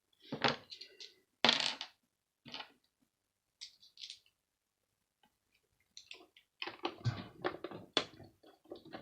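Handling noises from an electronic device being dismantled: separate knocks and clicks of the hard casing and small tools, then a quicker run of clattering over the last three seconds.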